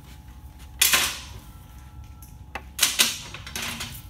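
Pliers clattering against metal clamps and brackets in an engine bay: two short, sharp rattling bursts about two seconds apart, with a lighter click near the end.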